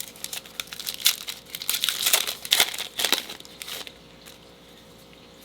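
Plastic wrapper of a trading card pack crinkling and tearing as it is ripped open by hand, a burst of crackles that stops about four seconds in.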